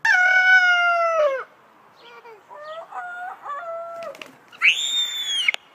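Rooster crowing: one long, loud crow lasting about a second and a half, dropping in pitch at its end, then a second, quieter crow. Near the end comes a short, loud, shrill cry.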